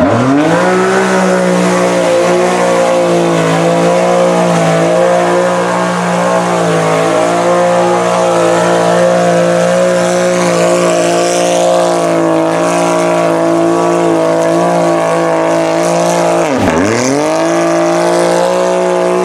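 Side-by-side UTV engine held at high revs as it churns through deep mud and water, the revs dropping sharply and climbing straight back about two and a half seconds before the end. Hissing mud and water spray from the spinning tyres sits over the engine note.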